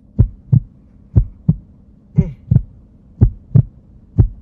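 Heartbeat sound effect: a slow double thump, lub-dub, repeating about once a second.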